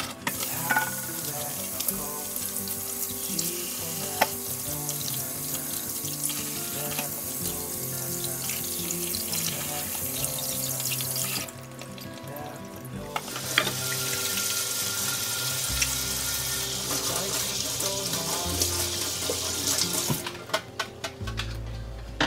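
Kitchen tap running into a stainless steel sink as pieces of whole fish are rinsed under it. The water stops about 11 seconds in, runs again about 2 seconds later, and stops a couple of seconds before the end.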